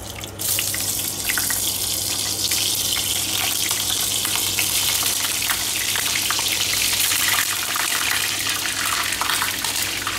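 Eggplant strips sizzling in hot oil in a wok. The sizzle starts suddenly about half a second in as they go into the oil, then runs as a steady hiss with scattered crackles.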